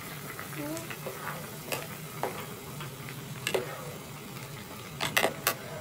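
Plastic ladle stirring a pot of simmering curry stew, with chunks sloshing in the broth and the ladle knocking and scraping against the pot a few times, several of them close together near the end.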